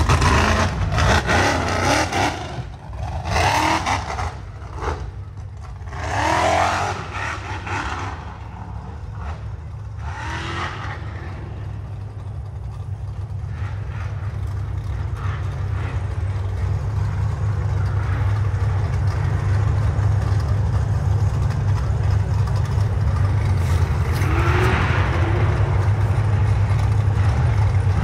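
Off-road race vehicle engines revving in short, hard surges over the first ten seconds or so, then a steady low engine drone that slowly grows louder, with another rev near the end.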